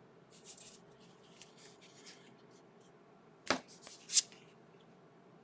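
Trading cards being handled and flipped through, the card stock softly rustling and sliding for the first couple of seconds. A little past halfway come two sharp snaps of card against card, the second the louder.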